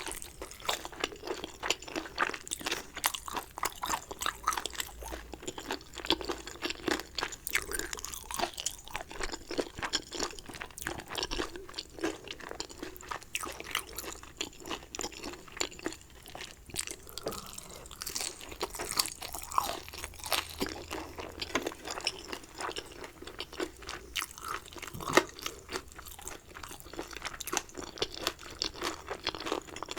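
Close-miked eating sounds: a person chewing dumplings, with steady wet chewing and many small mouth clicks and smacks, several a second. One sharper click stands out near the end.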